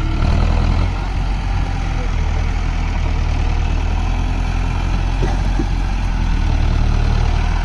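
Mahindra Arjun Novo 605 DI-i 4WD tractor's diesel engine running steadily under load as the tractor drives over a muddy bank into a flooded paddy field, a low, even drone.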